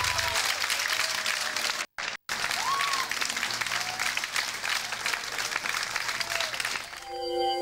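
A crowd applauding, with a few voices calling out over it and a brief cut-out about two seconds in. The applause fades near the end as sustained electronic music chords come in.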